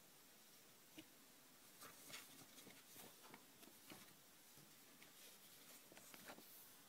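Near silence broken by a few faint rustles and light taps of paper cards being handled and lifted.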